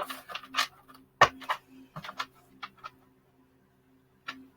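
Tarot cards being shuffled by hand: a quick run of card snaps and clicks over the first three seconds, the loudest a little past one second, then a single click near the end.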